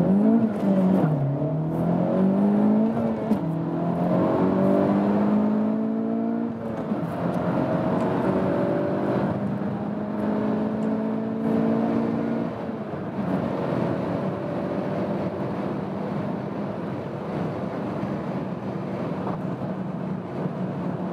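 Honda Civic Type R FK8's 2.0-litre turbocharged four-cylinder engine under full-throttle acceleration, revs climbing and dropping back at each quick manual upshift. There are three shifts close together, then a longer, slower pull in a higher gear. About two-thirds of the way through the note drops and holds steady at lower revs.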